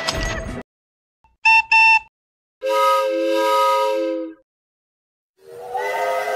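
Steam locomotive whistles sounded in separate blasts, each a steady chord of several tones: the tail of one blast ending within the first second, two short toots about a second and a half in, a longer blast of nearly two seconds, then another long blast starting near the end.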